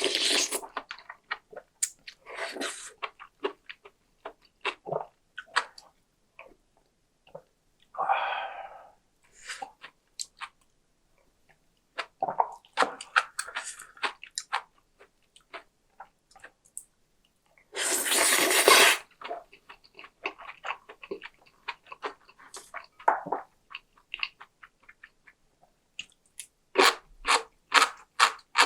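Close-miked eating: chewing and crunchy bites of crisp food, with a few short noisy bursts, the loudest about two-thirds through, and a quick run of crunches near the end.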